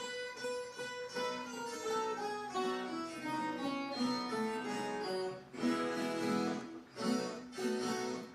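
Background music on acoustic guitar: a picked melody stepping downward, then strummed chords from about halfway through.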